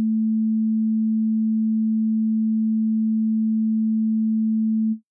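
A pure 220 Hz sine tone held steady at one pitch, the same in left and right channels (both in phase). It cuts off sharply near the end.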